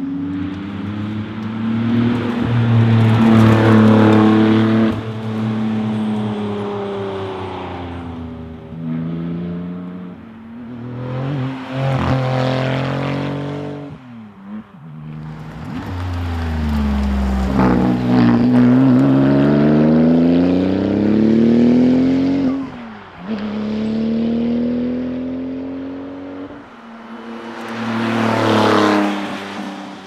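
Porsche 911 Turbo's twin-turbocharged flat-six driven hard past the roadside several times over. Its revs climb and drop through gear changes, and the pitch falls as the car goes by.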